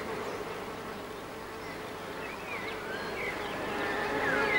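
Honeybee buzzing, a steady hum that grows louder toward the end.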